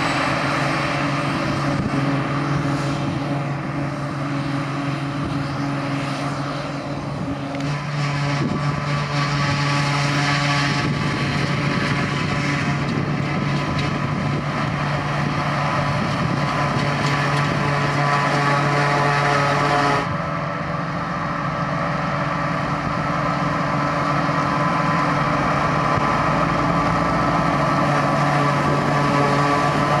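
Claas Jaguar 940 forage harvester running under load while picking up and chopping grass, a loud, steady engine and chopper hum, with a tractor running alongside. The sound changes abruptly about two-thirds of the way through.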